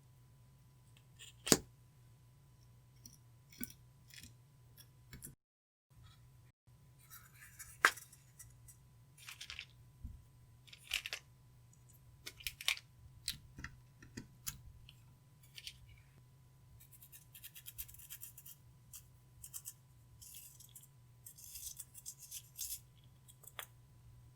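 Close-up handling sounds of slime and eyeshadow being worked by hand: irregular sharp clicks and taps, the two loudest about a second and a half in and near eight seconds, with stretches of crackly scraping through the middle and latter part. A low steady hum sits underneath.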